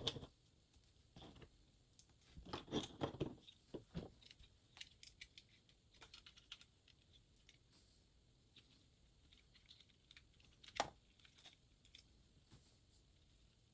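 Faint, scattered clicks and crinkling rustles of small plastic LEGO pieces being handled, with a cluster of them during the first few seconds and one sharper click near the end.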